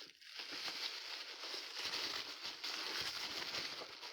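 Packing wrap crinkling and rustling continuously as a figurine is unwrapped by hand.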